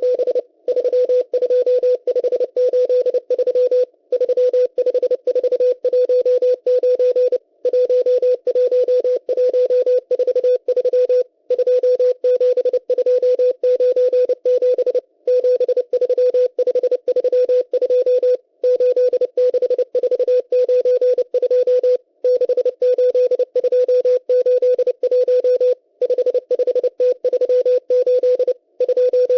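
The M12 numbers station sending Morse code number groups, received on shortwave: a single steady beeping tone keyed on and off rapidly, in groups broken by short pauses every three to four seconds.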